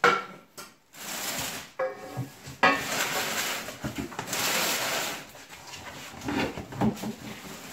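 Stainless exhaust downpipes clank as they are set down on a concrete floor, a sharp metallic knock with a brief ring. Then plastic bags rustle and crinkle for a few seconds as hands dig through a cardboard box of parts, with a few light knocks near the end.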